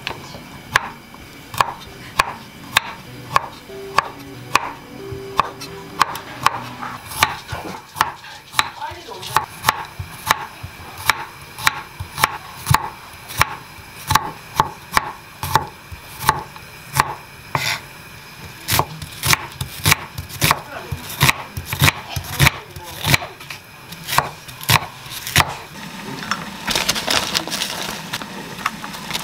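Chef's knife slicing garlic cloves on a wooden cutting board: sharp knocks of the blade on the board, about two a second. Near the end they give way to a few seconds of rustling as a plastic bag is handled.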